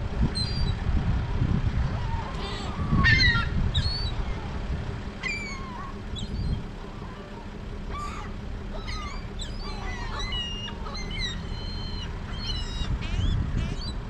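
A flock of seagulls calling: many short, overlapping cries, coming thicker in the second half, over a steady low rumble.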